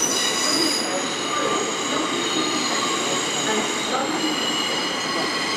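Wheel flange squeal from a Class 150 Sprinter diesel multiple unit rounding the curve into the platform: several high squealing tones held at once, over a low rumble.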